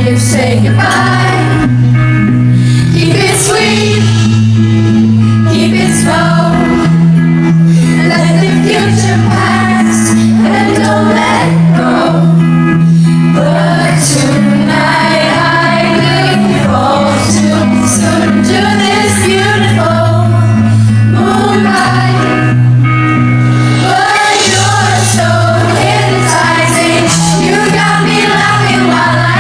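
A female pop singer singing live over a band, with held bass notes that change every second or two and regular percussion hits.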